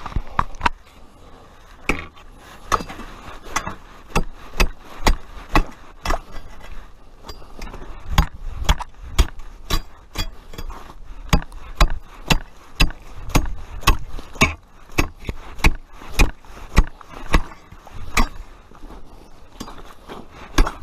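Ice chisel (spud bar) chopping into lake ice: a long run of sharp strikes, roughly two a second.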